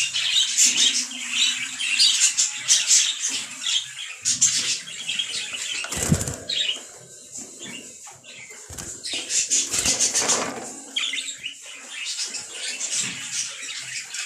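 Budgerigars in a wire cage flapping their wings and scrambling on the bars, with rapid high-pitched fluttering and chattering and a sharper clatter about six seconds in.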